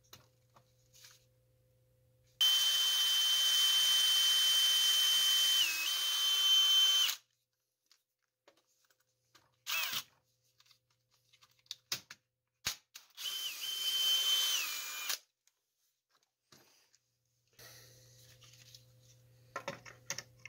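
DeWalt 20V XR cordless drill boring a hole into a wooden lamp base. There is one long run of about five seconds with a steady high whine that dips briefly as the bit bites, then a shorter run of about two seconds. A few sharp clicks fall between the two runs.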